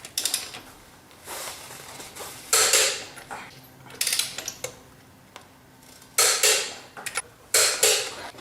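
Torque wrench on wheel lug nuts: about seven short metallic ratcheting strokes with a few sharp ticks, as the nuts are tightened to 130 foot-pounds in a cross pattern.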